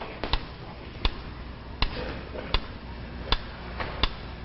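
A clock ticking slowly and evenly, about four ticks every three seconds, over a faint low hum.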